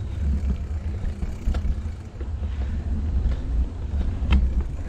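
Wind buffeting the microphone while cycling: a heavy, gusting low rumble, with a couple of sharp clicks about one and a half and four and a half seconds in.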